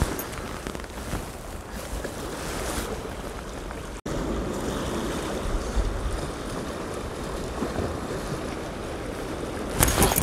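Sea waves washing against a rocky shore, with wind buffeting the microphone. The sound cuts out for an instant about four seconds in, and a louder rush of noise comes near the end.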